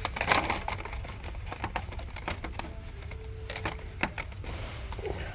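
Clicking and rustling of plastic blister-carded die-cast cars being handled: a burst of rustling at the start, then scattered sharp clicks throughout.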